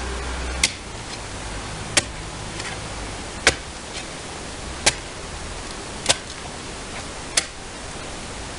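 Garden hoe blade chopping into the soil of a raised vegetable bed: six sharp strikes, evenly paced about one every second and a half.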